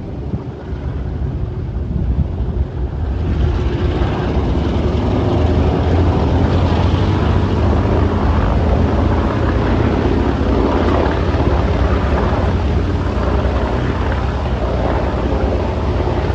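B-17G Flying Fortress's four Wright R-1820 Cyclone radial engines running as the bomber taxis. The propeller drone grows louder over the first three or four seconds and then holds steady as a deep rumble.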